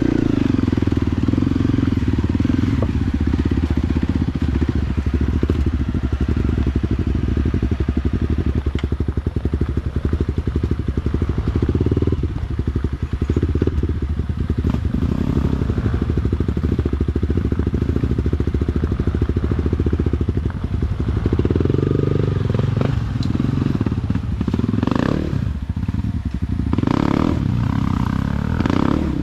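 Off-road vehicle engine running steadily under load at low speed along a rough trail, with some knocks and clatter in the last several seconds.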